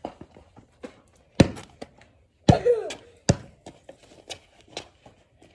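A basketball bouncing on a concrete driveway: three sharp thuds, the loudest about a second and a half in and the next two about a second apart, then a few fainter taps.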